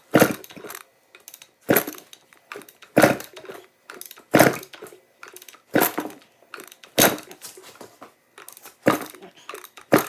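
1986 Honda CR250 two-stroke engine being kicked over with its kickstarter for a compression test: about seven sharp kicks, roughly one every second and a half, each a loud clunk with a short rattle after it.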